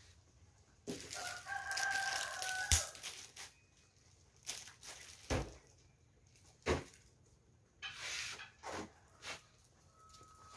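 A rooster crows once, a held call of about two seconds starting about a second in. It is followed by a few sharp knocks and short rustling noises.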